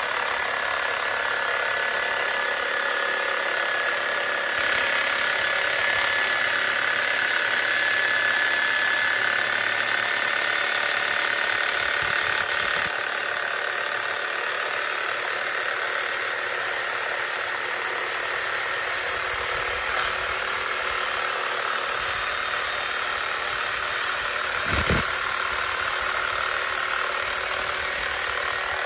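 Titan TTB533RSP corded reciprocating saw, its broken shaft welded back together, running steadily at speed. It is sawing a piece of wood clamped in a vise with a metal-cutting blade, a continuous motor whine with the blade rasping, and it winds down right at the end. There is a short knock about 25 seconds in.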